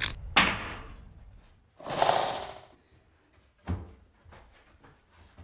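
Wooden face-frame pieces being handled on a workbench: a sharp wooden knock at the start, a rushing noise lasting about a second near the middle, and a second, softer knock a little later.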